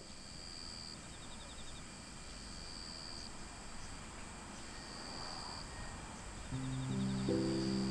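Insects calling in the background: a high, even trill lasting under a second that repeats about every two seconds, with a second, rapidly pulsed chirp twice between the trills. Soft music with held low notes comes in near the end.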